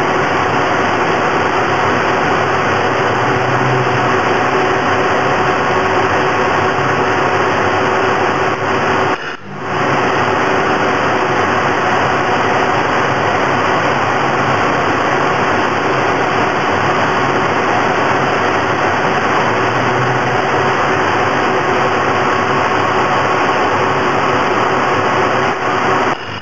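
Loud, steady machine hiss with a faint hum, without distinct weld strikes. It dips briefly about nine seconds in.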